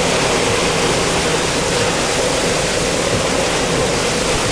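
Hurricane eyewall wind blowing with a loud, steady rush, carrying driving rain and spray, as storm-surge water washes across a road.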